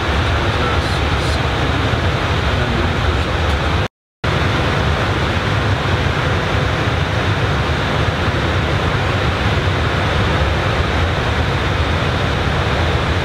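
Steady rushing airflow and engine noise inside the flight deck of an Airbus A320 in flight. The sound cuts out completely for a split second about four seconds in.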